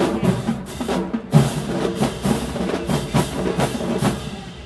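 Marching band drums playing a rhythmic cadence, a steady run of sharp drum strikes.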